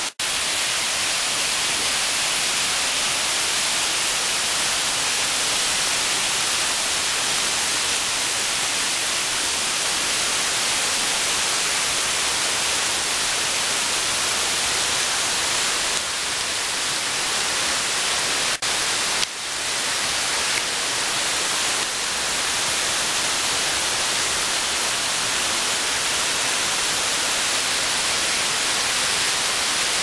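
Steady rushing of a tall waterfall pouring down a rock face, an even hiss heavy in the upper range, broken by brief dropouts just after the start and again about two-thirds of the way through.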